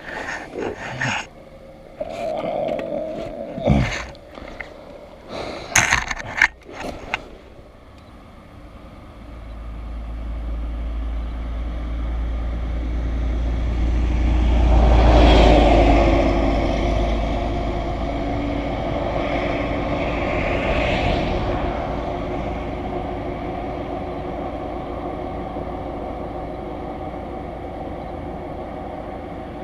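A few sharp knocks and scrapes, then a vehicle passing on the road: its rumble builds, peaks near the middle and fades slowly.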